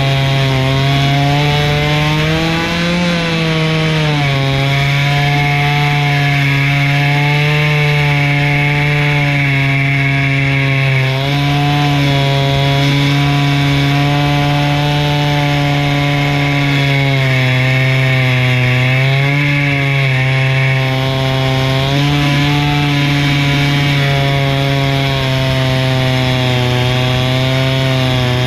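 Chainsaw mounted in a chainsaw mill running at full throttle under load, ripping lengthwise through a log. The engine note holds steady and sags a little lower a few times as the cut bogs it down, then recovers.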